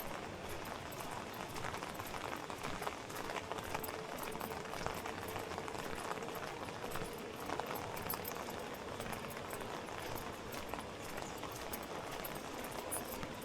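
Rain falling on a city street: a steady hiss with many small drip ticks, and footsteps on wet pavement.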